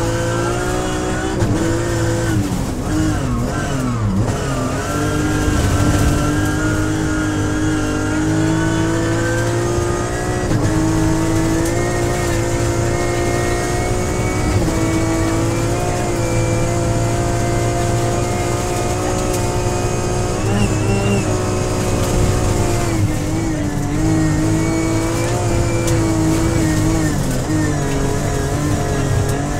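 BMW M3X rally car's engine heard from inside the cabin, running at high revs on full throttle. Its pitch dips and recovers a few seconds in and again about three-quarters of the way through.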